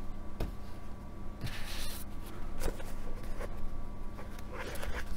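Books being handled: paper and covers rustling, with a few soft knocks, in short scattered bursts over a faint steady hum.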